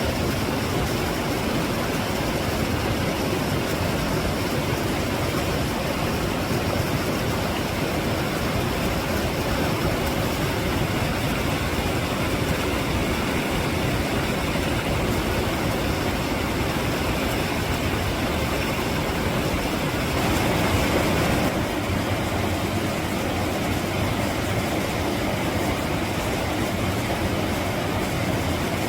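Mountain stream rushing steadily over rocks, a continuous dense water noise that swells slightly about twenty seconds in.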